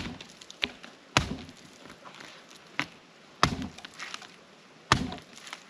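Repeated chopping blows into a coconut to open it: four heavy strikes one to two seconds apart, with a few lighter knocks between.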